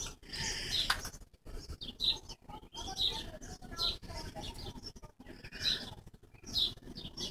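Birds chirping: short, high calls repeating about once a second, with a few sharp clicks mixed in.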